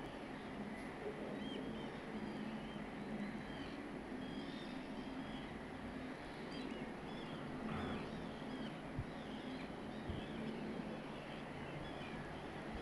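Many distant birds calling in short, scattered chirps over a low, steady background hum.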